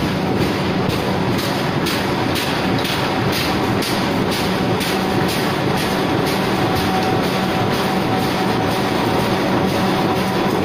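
Flexo printing machine for corrugated board running, a steady mechanical clatter with a regular knock about two to three times a second over a constant hum.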